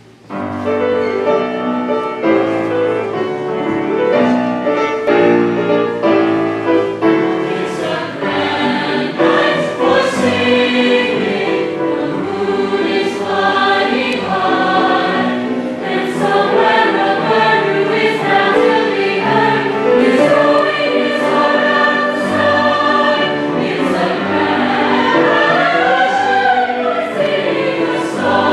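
A choir singing, several voice parts together in harmony.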